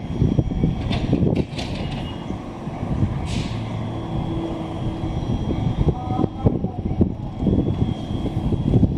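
JR West 207 series electric train standing at the platform, its equipment giving a steady hum over a low rumble, with a faint high whine. A brief hiss comes about three seconds in.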